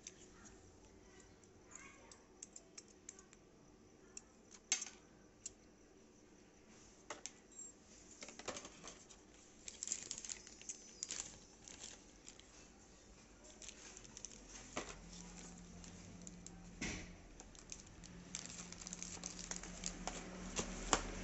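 Handling noise: plastic packaging crinkling and earphone cables and parts being handled, with scattered small clicks and taps. A faint low hum comes in about three quarters of the way through.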